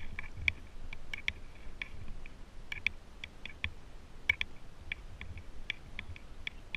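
Light, irregular clicks and taps, about two or three a second, over a faint low rumble of wind on the microphone, while walking up stone steps.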